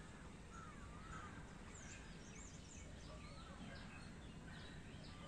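Faint birdsong: several birds whistling and chirping, short wavering notes over a steady background hiss.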